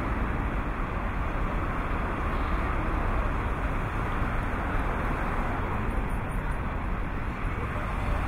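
Steady background of distant city traffic: an even hum with no distinct events.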